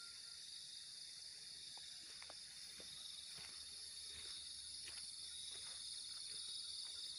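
A steady, high-pitched chorus of insects, with a few faint short ticks scattered through it.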